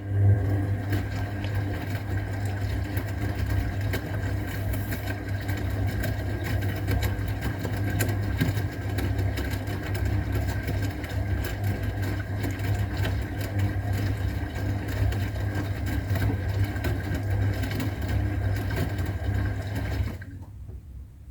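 Old AEG Öko-Lavamat 693 washing machine running its motor with a steady hum during a 60 °C wash, most likely turning the drum. It stops suddenly near the end.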